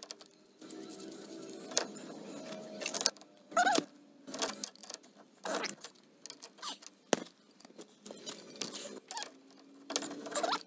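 A steel pipe wrench clinking, knocking and scraping against galvanized pipe fittings as it is worked into the tight gap between two water pipes, in irregular bursts of metal-on-metal clicks and scrapes.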